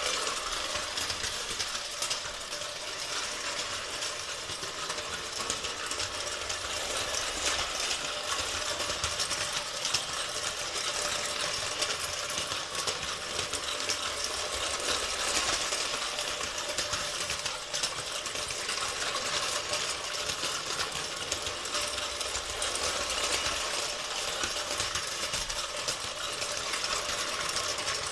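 Schoenner gauge 2 tinplate live-steam locomotive running on tinplate track: a steady, fast mechanical clatter of its small steam engine and wheels.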